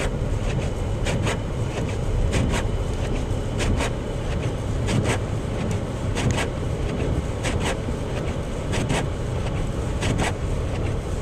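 Car driving on a snowy expressway, heard from inside the cabin: steady engine and road rumble, with a short regular knock or swish about every 1.2 s.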